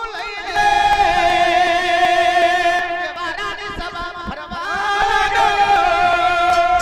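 Gujarati devotional jagar singing: a voice holding long, wavering notes over instrumental accompaniment, swelling about half a second in.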